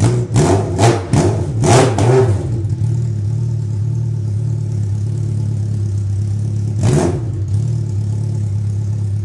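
1998 Suzuki Katana 750's inline-four idling through an open exhaust with the muffler removed, very loud, with several quick throttle blips in the first two seconds and one more about seven seconds in.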